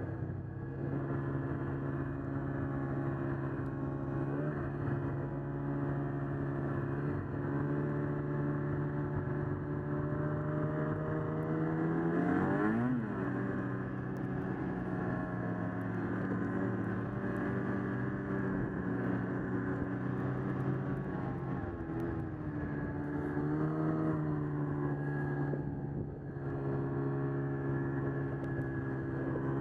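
Ski-Doo Summit 600 Sport snowmobile's two-stroke engine running under load through deep snow, mostly at a steady pitch. Partway through it rises to a peak and then drops off sharply, with smaller surges near the start and toward the end.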